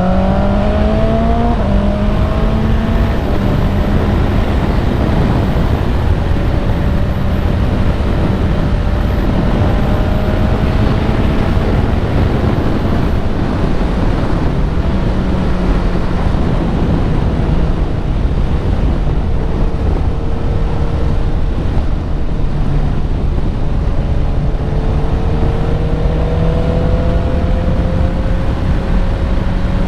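Honda CBR650R inline-four engine through an Akrapovic exhaust while riding: revs climbing at the start, a shift about two seconds in, then a steady cruise with a slow rise in revs near the end, over a constant rush of wind and road noise.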